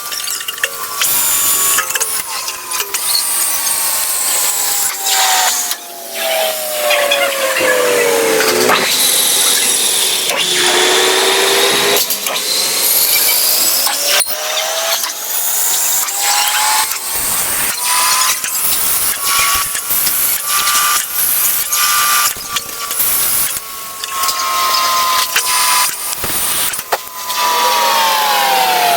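Small lathe running, its motor whine sliding down in pitch, climbing back up and falling again near the end as the speed changes, over the scraping of a cutting tool on the spinning workpiece.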